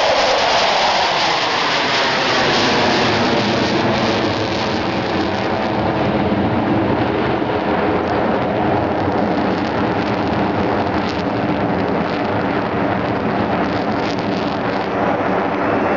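Four Su-27 fighters flying over in formation, their AL-31F turbofan engines giving a loud continuous jet roar. The pitch drops around the start as they pass, then the roar holds steady.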